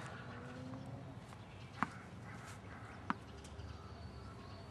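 Two faint, sharp pocks of a tennis ball being hit during a rally, a little over a second apart.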